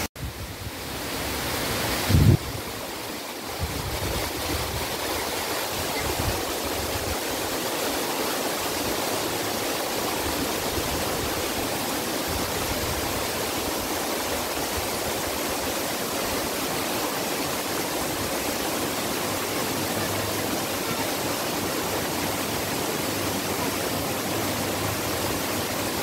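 A small stream rushing down a rocky cascade: a steady, unbroken rush of water. A short low thump about two seconds in.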